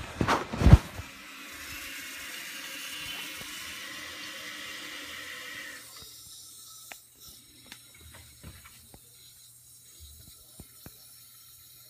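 Jacuzzi Maxima 1.6 gpf toilet tank refilling after a flush, its fill valve hissing steadily before shutting off abruptly about six seconds in. A couple of sharp knocks come right at the start.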